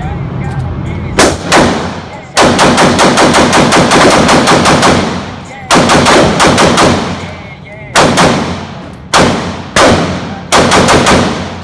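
Rapid gunshots from a semi-automatic gun fired in an indoor range lane, each report echoing off the walls. Two shots come about a second in, then a fast string of about fifteen at roughly six a second, then shorter groups of two to five shots.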